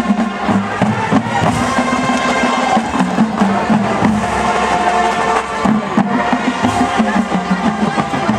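High school marching band playing its half-time show: brass over a drumline with bass drums keeping a steady beat.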